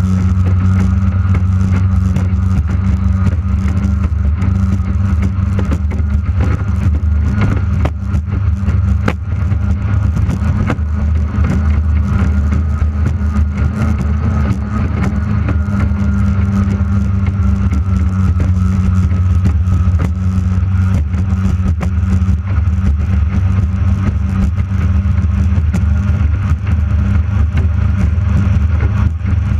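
J Hydro racing hydroplane's outboard engine running steadily at racing speed, heard close up from on board over rushing wind and water noise.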